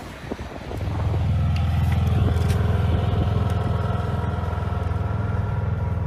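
An engine running steadily, a low hum that comes in about a second in and holds an even pitch.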